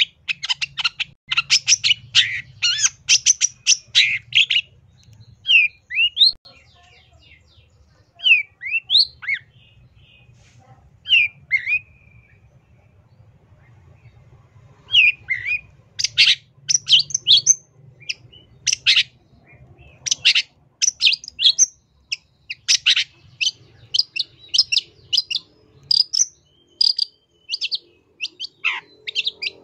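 Long-tailed shrike (cendet) singing a varied song packed with mimicked phrases. It opens with bursts of rapid chattering, then gives single slurred whistles spaced about a second apart. After a short lull, from about halfway on, it returns to a dense run of fast chattering notes.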